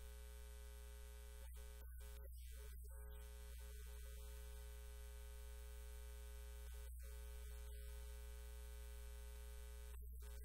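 Steady electrical hum, a low buzz with a ladder of even overtones, and nothing else.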